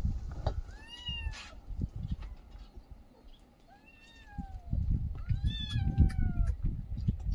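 Kittens mewing: several short, high, arching calls, one about a second in and a run of them from about four to six and a half seconds, over low bumping and rustling.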